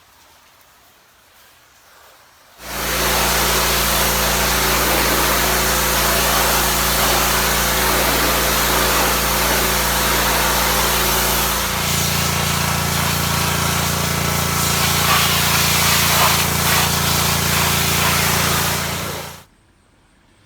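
Pressure washer running: a steady engine hum under the loud hiss of the high-pressure spray. It starts abruptly a few seconds in, its engine note changes about halfway through, and it stops sharply near the end.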